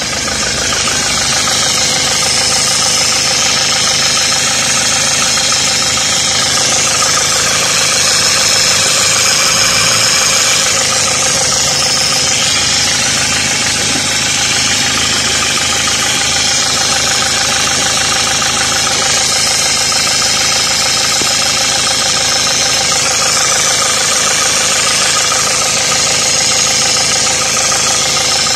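Renault Clio 4 engine running steadily at idle, with a steady high-pitched noise over the engine note: the annoying engine noise under diagnosis.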